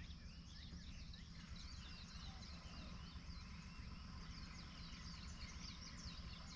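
Faint outdoor bird chorus: many small birds chirping and twittering in quick, overlapping calls, over a steady low background rumble.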